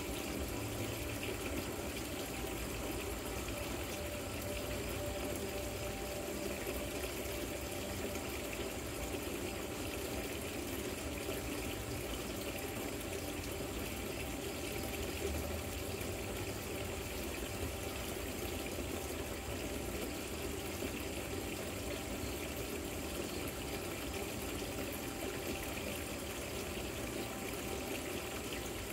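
Water trickling and splashing steadily down an artificial rock waterfall fountain.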